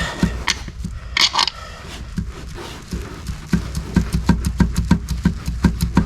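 A tight rear main bearing cap on a diesel engine being worked loose, metal on metal: irregular clicks and knocks, then a quick even run of about four knocks a second in the second half. The cap is held tight by its thrust washer.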